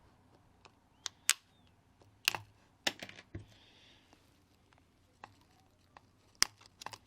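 Irregular sharp clicks and taps of small tools and parts being handled against a tablet's frame during disassembly, about a dozen in all with the loudest near the start, in the middle and near the end.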